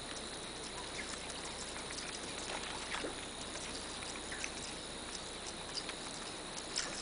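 Faint, irregular ticks and small surface splashes of a topwater stickbait being twitched and reeled back across calm water on a baitcasting outfit, over a steady outdoor hiss.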